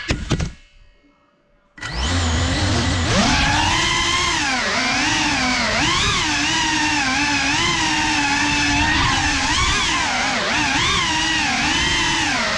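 FPV quadcopter's brushless motors heard through its onboard camera. After a brief loud burst at the start the motors fall silent for about a second. About two seconds in they spin up suddenly, then keep a steady whine whose pitch wavers up and down with the throttle.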